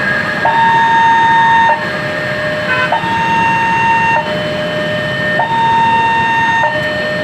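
Railway level crossing warning siren sounding from a horn loudspeaker: a steady two-tone hi-lo alternation, each tone held a little over a second, alongside a steady higher tone.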